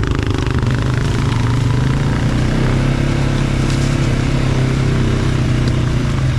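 ATV engine running at a steady pitch, held at a constant speed.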